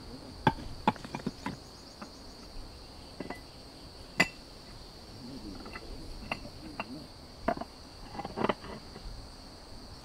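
Flat stone slabs knocking and clinking against each other as they are handled and set in place, about a dozen sharp separate knocks, over a steady high insect drone.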